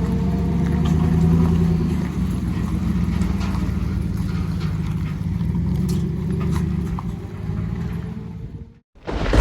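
A motor vehicle's engine running steadily with road or track noise and scattered light clicks. It cuts off abruptly near the end.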